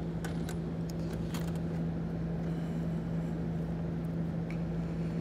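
A steady low hum, with a few faint light clicks in the first second and a half as a wing nut is turned down on a battery terminal stud over a cable's ring terminal.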